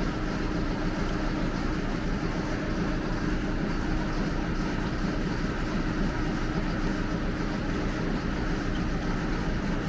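Steady machine hum and hiss, even in level throughout, with a faint low steady tone under it.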